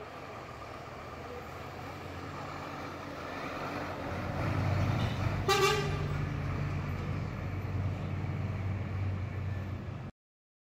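A diesel intercity bus's engine running as the bus pulls past close by, growing louder about four seconds in, with one short horn toot at about five and a half seconds. The sound cuts off abruptly near the end.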